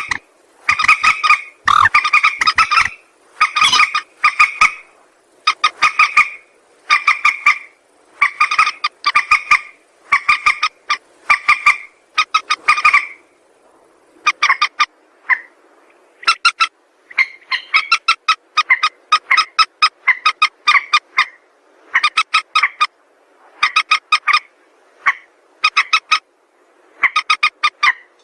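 Mandar sawah (a rail) calling over and over: short clusters of rapid, harsh, croaking notes, about one cluster a second, with brief pauses between.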